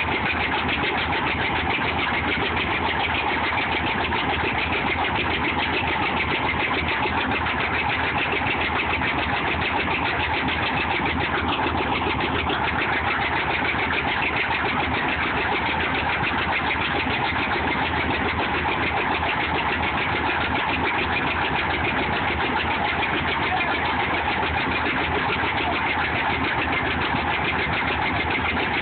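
Threshing machine running steadily, a dense mechanical clatter with a fast, even rhythm that holds at one speed.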